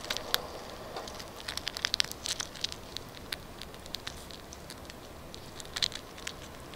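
Live coconut palm weevil larvae (đuông dừa) squirming in a small bowl held up to the microphone. Faint, irregular rustling and clicking, which is said to come from their mouths.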